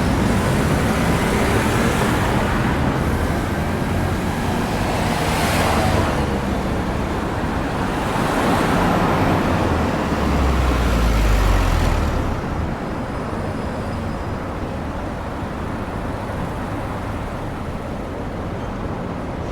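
Road traffic passing on a city avenue, vehicles going by one after another. A heavy low engine rumble builds and then drops away suddenly about twelve seconds in, leaving a steadier, quieter traffic hum.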